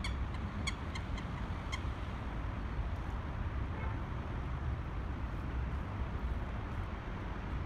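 Steady low rumble of distant city traffic, with a few faint high clicks in the first two seconds.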